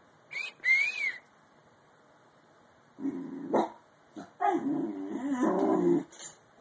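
Bull terrier puppy vocalising: a short, high-pitched squeak just after the start, then from about three seconds in a run of lower-pitched whines and yips that waver in pitch.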